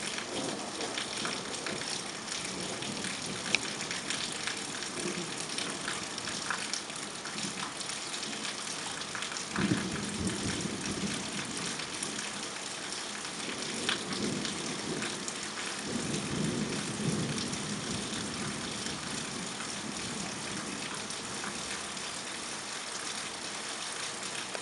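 Steady heavy rain hissing, with scattered sharp ticks of drops striking close by. A low rumble swells in about ten seconds in and again about two-thirds of the way through.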